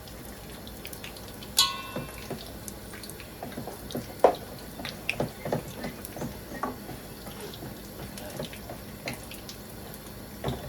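Sel roti batter deep-frying in hot oil: a steady sizzle with scattered crackles and pops. A metal utensil clinks once against the pan, ringing briefly, about one and a half seconds in.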